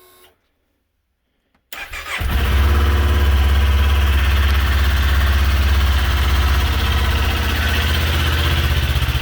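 A 2019 Kawasaki Z400's 399 cc parallel-twin engine is cranked on its electric starter about two seconds in, catches almost at once and settles into a steady idle.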